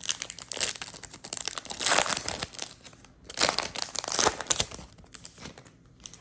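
Wrapper of a Topps Chrome baseball card pack being torn open and crinkled, in two loud spells of rustling, dying away near the end.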